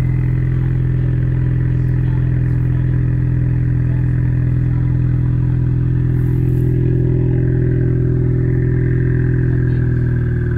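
2020 Ford Mustang EcoBoost's 2.3-litre turbocharged four-cylinder idling steadily after a cold start, heard at the factory active-exhaust tips, with a faint high whine over the exhaust note.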